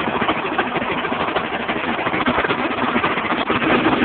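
Racing lawnmower engine running steadily with a rapid, even firing patter, warming up after a cold start of the freshly reassembled motor.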